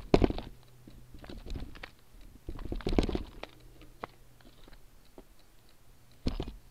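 Motobecane Fantom Cross bicycle rolling slowly over bare rock and loose gravel: scattered crunches, clicks and knocks from the tyre and bike, loudest at the start, around three seconds in, and again briefly near the end.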